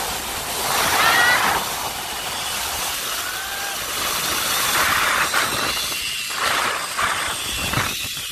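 Zipline trolley pulleys running along the steel cable, with wind rushing past: a steady hiss with faint whining tones that rise in pitch now and then.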